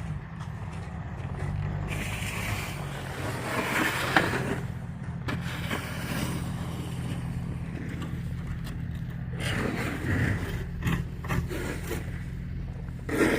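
A vehicle engine running steadily with a low hum, with scraping noises over it now and then.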